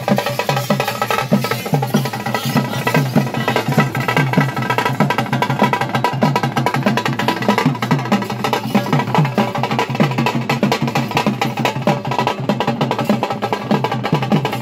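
Fast, steady drumming on frame drums, many quick strokes a second without a break.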